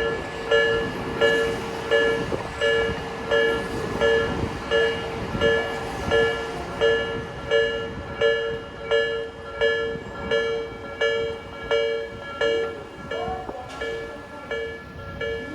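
Japanese level-crossing electronic warning bell ringing in an even beat, about three rings every two seconds, signalling that the crossing is closed for an approaching train. A train runs past underneath it, loudest in the first half.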